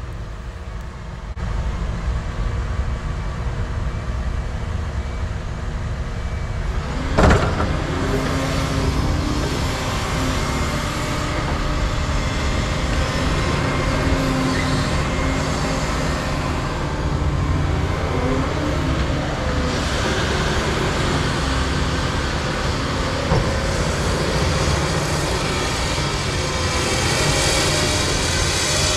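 Diesel engines of excavators running steadily as they dig and swing. One sharp knock comes about seven seconds in, and a hiss builds near the end.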